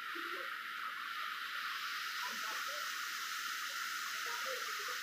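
Steady rushing of a flowing, rain-swollen stream: an even hiss with no engine running.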